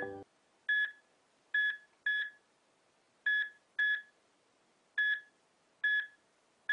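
A series of about nine short electronic beeps, all at the same pitch, coming at irregular gaps of roughly half a second to a second.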